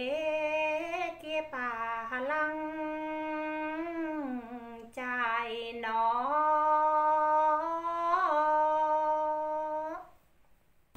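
A woman singing phong slư, a Tày folk song, unaccompanied, in long held notes with sliding ornaments between them. Her voice stops near the end.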